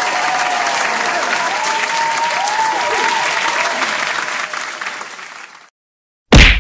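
Crowd applauding, fading out about five seconds in. A moment later comes one sudden, very loud hit.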